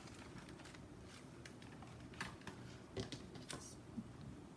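Faint, irregular small clicks and taps of papercraft materials and tools being handled on a work table, with a low steady background hum.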